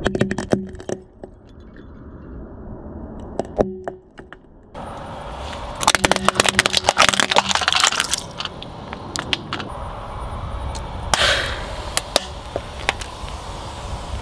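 Hard plastic objects cracking and crunching under a slowly rolling car tyre on asphalt, in several separate bursts of snapping. The densest and loudest crackling comes about six to seven and a half seconds in.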